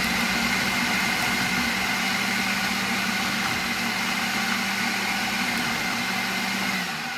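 Countertop food processor motor running steadily under load as it purees a thick mix of cooked meat, vegetables and broth, a steady hum with a high whine. It is switched off near the end and winds down.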